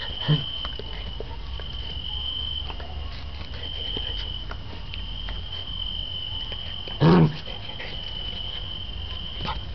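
Crickets trilling steadily in repeated stretches, while a dog gives two short vocal sounds: a brief one just after the start and a louder one about seven seconds in.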